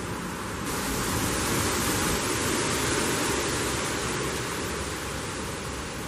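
Wind gusting through trees with leaves rustling, a steady rushing noise that swells a little under a second in and slowly eases toward the end.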